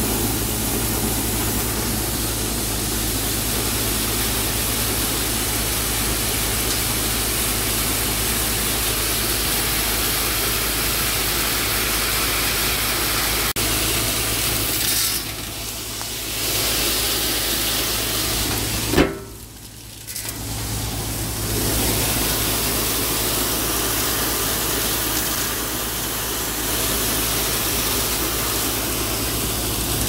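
Grain pouring into a corrugated steel grain bin from the fill opening in the roof: a steady rushing hiss over a constant low machine hum. The sound briefly falls away after a sharp click about two-thirds of the way through.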